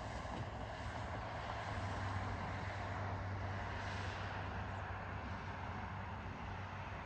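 Steady distant engine rumble over a constant low hum, swelling slightly a couple of seconds in.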